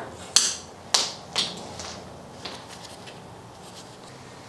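Sharp metallic clicks and clinks of the loosened bicycle headset locknut and spacer being unthreaded by hand and lifted off the fork's steerer: three crisp clicks in the first second and a half, then a few fainter ticks.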